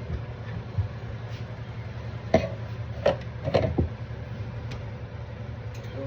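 Kitchen cookware clatter: four sharp clinks and knocks in quick succession about halfway through, over a steady low hum.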